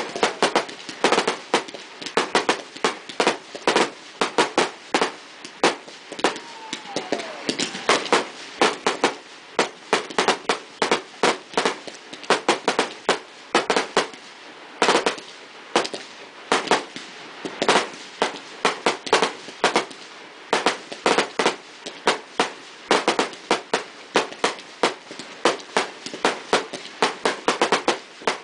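Fireworks display: a continuous barrage of aerial shells bursting, several sharp bangs a second with no let-up.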